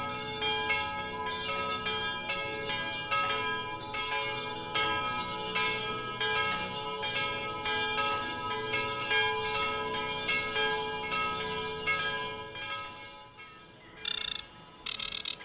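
Church bells ringing: many overlapping strikes of several small bells, their tones ringing on and dying away about two seconds before the end. Near the end, a few short high bird calls.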